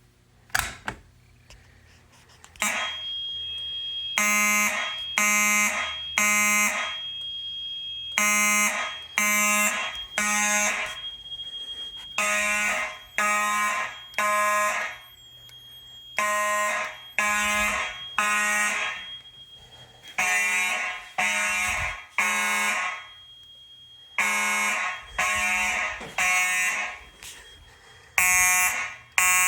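A fire alarm pull station is pulled with a short click. About three seconds later, fire alarm horns start sounding the temporal-three evacuation pattern: three blasts a second apart, then a pause, repeating every four seconds over a steady high-pitched tone.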